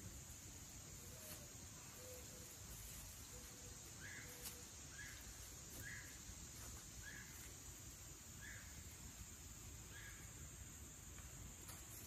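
Quiet woodland ambience: a steady high insect drone, with a bird's short chirp repeated about once a second, seven times, from about four seconds in.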